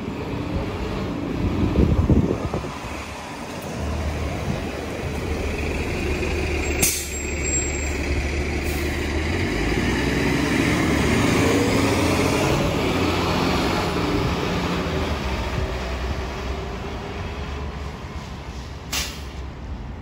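Transit bus running close by, its engine sound building to a peak about halfway through and then fading as it pulls away, with air-brake hissing and a couple of sharp clicks.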